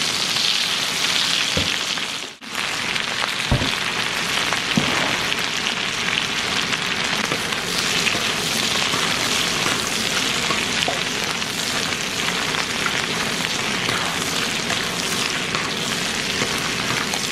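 Crawfish frying in a pan with butter, onion and garlic: a steady sizzle that drops out briefly about two seconds in, with a couple of short knocks about three and a half and five seconds in.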